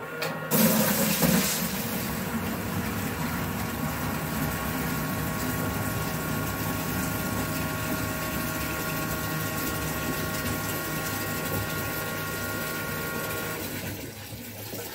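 A 12-volt 1100-gallon-per-hour bilge pump humming steadily while water gushes from its hose into a plastic bucket. Near the end the pump motor stops and only the water running out of the hose is left.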